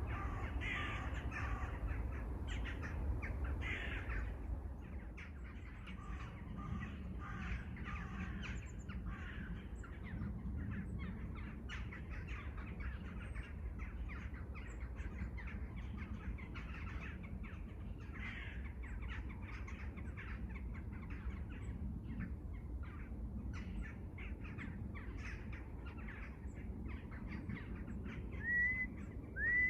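A flock of crows cawing again and again, many calls overlapping, busiest in the first few seconds. Near the end three loud, clear whistled notes stand out over the cawing.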